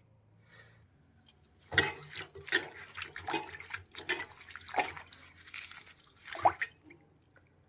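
Fresh herb leaves being washed by hand in water: a string of irregular splashes and drips, starting about two seconds in and stopping near the end.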